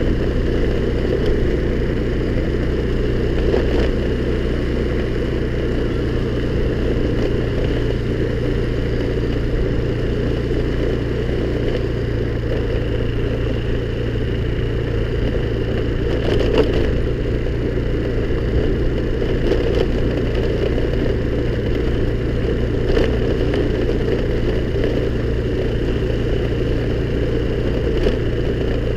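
Honda scooter's small engine running steadily while riding, with a few brief sharp knocks along the way.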